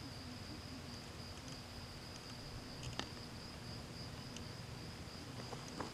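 Crickets trilling steadily in a high-pitched, unbroken chorus, with a single faint click about three seconds in.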